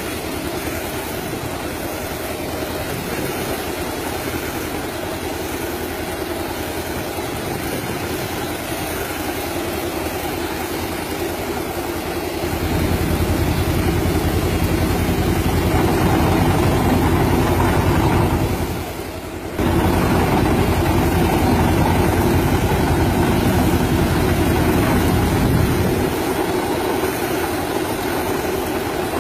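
A tractor engine drives a tractor-mounted air-blast orchard sprayer, running steadily while it blows spray into the trees. It grows louder a little under halfway through and drops out briefly about two-thirds in.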